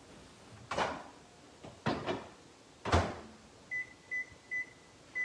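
Over-the-range microwave being loaded: a few clunks of the door and container, the loudest about three seconds in as the door shuts, then four short high keypad beeps as a three-minute cook time is entered.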